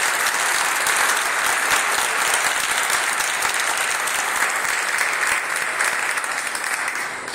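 Audience applauding steadily, the clapping thinning out and fading near the end.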